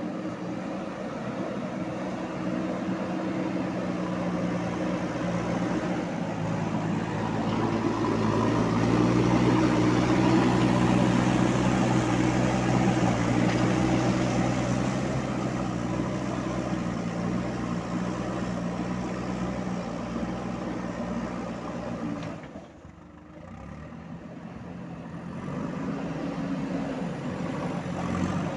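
JCB 3DX backhoe loader's diesel engine running under working load, getting louder and rising slightly in pitch for several seconds in the first half, then easing off. It drops away sharply for about a second near the end, then picks up again.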